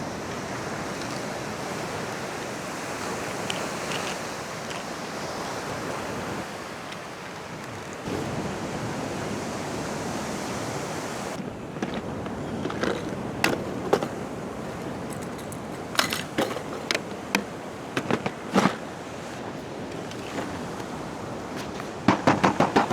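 Surf washing onto the beach with wind noise for the first half. From about halfway the surf sound thins and a string of sharp clicks and knocks follows, ending in a quick rattle of clicks near the end.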